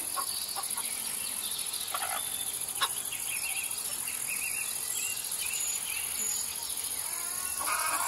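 Crickets chirring steadily at a high pitch, with a few brief faint bird chirps and clicks. Near the end a rooster starts to crow.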